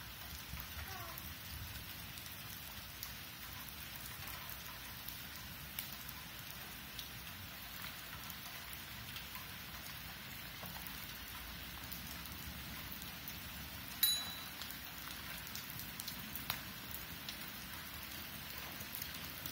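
Steady summer rain falling on a wet concrete driveway, an even hiss of a downpour. A single brief sharp click cuts through it about fourteen seconds in.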